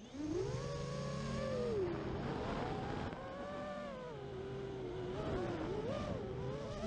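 Brushless motors of an FPV freestyle quadcopter (Emax RS2306 on an Armattan Rooster) whining, the pitch rising and falling continuously with the throttle as it flies, heard from the drone's onboard camera.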